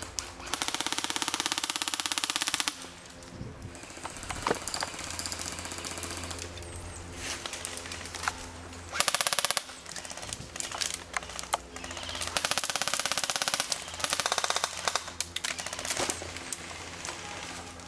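Airsoft guns firing full-auto: a burst of about two seconds near the start, then shorter bursts around the middle and later, with scattered single snaps between them.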